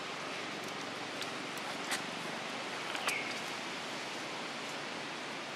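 Steady woodland ambience hiss with a sharp click about two seconds in and, about a second later, another click followed by a brief falling chirp.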